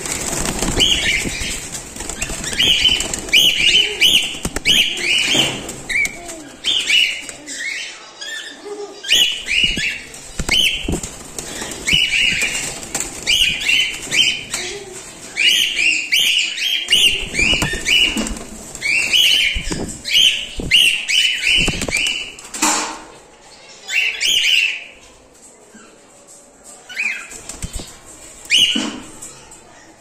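Cockatiels flapping their wings as several birds take off and land on the perch, then many short chirping calls in quick runs that thin out near the end. A single sharp knock comes about two-thirds of the way through.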